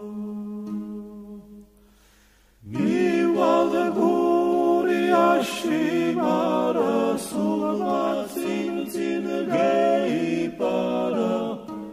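Gurian folk song sung a cappella by a small group of voices in close polyphony. A held chord fades away, and after a short pause the voices come in together about two and a half seconds in, singing long sustained notes with sliding pitch changes, breaking briefly near the end.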